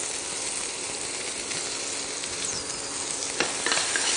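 Mint leaves and mustard-seed tempering sizzling in hot oil in a nonstick wok. From about three and a half seconds in, a spatula stirs the pan, scraping against it with sharp clicks.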